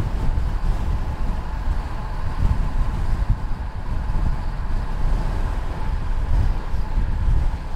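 Wind buffeting the microphone of a chest-mounted action camera on a road bike descending at about 67 km/h: a loud, gusty rushing with a deep rumble, and a faint steady whine above it.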